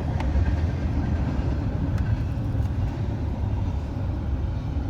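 Steady low rumble of a car engine running, with a few faint ticks.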